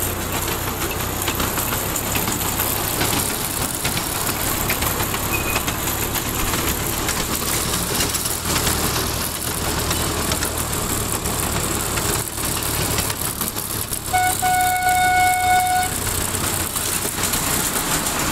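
Miniature ride-on train running along its track, a steady rumble with wheel and rail clatter. About fourteen seconds in, the locomotive gives one whistle blast of nearly two seconds at a single steady pitch.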